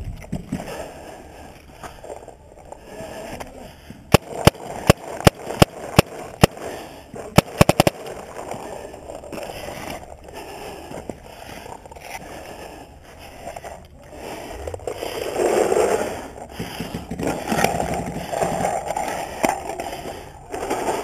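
Tippmann A5 paintball marker firing. About four seconds in comes a string of loud sharp pops, roughly three a second, then a quick burst of several rapid shots.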